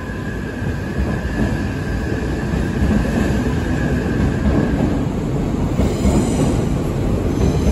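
Odakyu 50000 series VSE Romancecar electric train pulling out and passing close by. Its running rumble grows louder as it picks up speed. A steady high whine fades out about five seconds in, and faint high wheel squeals come in near the end.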